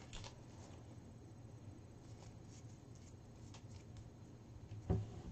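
Faint crinkling and rustling of a small folded paper slip being unfolded by hand, a few quick crackles, over a low steady hum. A soft thump about five seconds in.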